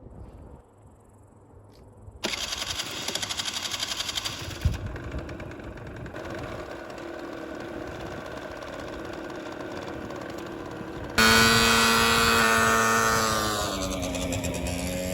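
Heavy construction machinery engines running. The sound comes in abruptly about two seconds in, and a louder engine with a droning hum sets in near the end, its pitch dipping and then rising again as it works.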